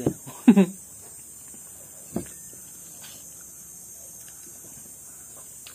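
Mostly quiet background with a steady high hiss. A brief vocal sound comes just after the start and a single light click about two seconds in.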